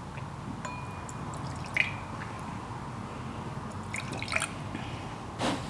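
Liquid dribbled in short drips and small pours from a small glass jug into stemmed tasting glasses, with a few light glass taps.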